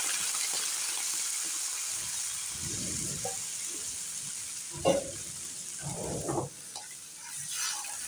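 Hot sauce sizzling in a wok as a stream of water goes in, the hiss slowly dying down, with a few short scrapes and knocks of a spatula stirring the pan.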